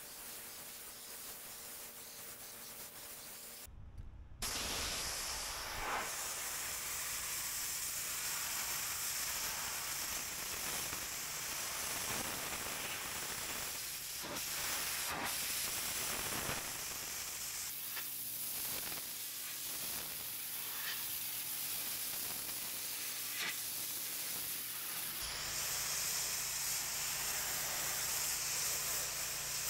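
Pressure washer spray hissing steadily on paving, with a steady low hum underneath. It is quieter for the first few seconds, drops out briefly about four seconds in, then comes back louder and shifts in character twice later on.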